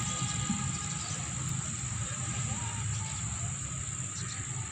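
Steady high-pitched chirring of insects over a low, even rumble of outdoor background noise.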